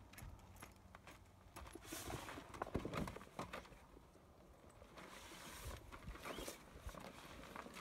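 Rooftop tent's fabric travel cover rustling and swishing as it is pulled off the roof, with two longer swishes about two seconds in and again about five seconds in. Scattered footsteps and knocks on gravel.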